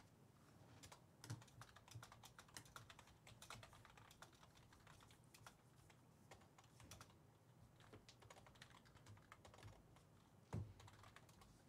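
Near silence with faint, irregular typing on a computer keyboard, the key clicks coming in loose runs. One soft thump near the end.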